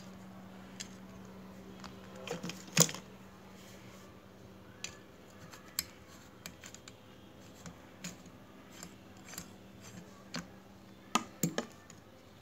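Scattered light clicks and knocks of small metal parts being handled and fitted as a motorcycle brake master cylinder and its lever are put back together, a socket tool working at the lever pivot. The loudest knock comes about three seconds in, and a quick run of clicks comes near the end.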